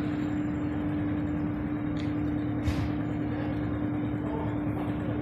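A steady single-pitched mechanical hum over a constant bed of noise, with a couple of faint ticks about two and nearly three seconds in.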